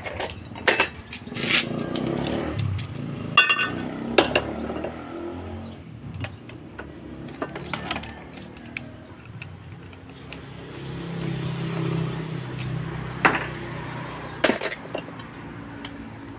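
Hard clicks and metallic knocks as an old steel frying pan and a corded drill are handled on a tabletop, most of them in the first few seconds. Later, a bit is fitted into the drill chuck by hand. A low steady rumble swells and fades in the middle.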